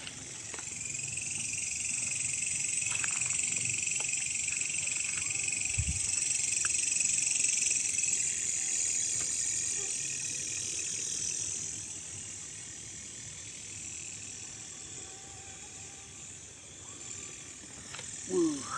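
Steady high-pitched chorus of night insects, swelling after the first second and fading after about twelve seconds, with scattered faint clicks and a single low thump about six seconds in.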